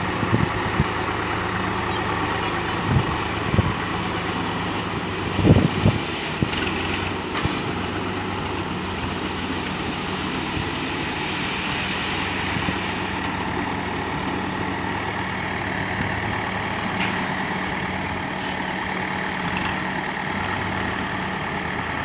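Escorts backhoe loader's diesel engine running steadily, with a few thumps and knocks in the first six seconds, the loudest just before six seconds in. From about five seconds in, a high-pitched steady whine grows louder toward the end.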